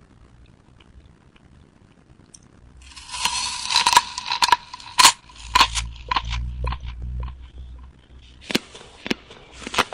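A crisp apple being bitten and chewed. A crunching bite about three seconds in is followed by sharp crunches and chewing, with a duller stretch in the middle.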